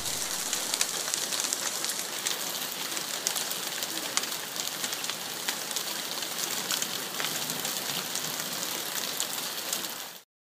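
Hail mixed with rain falling on a wet wooden deck: a steady hiss of drops with many small, sharp ticks of pellets striking. It cuts off suddenly near the end.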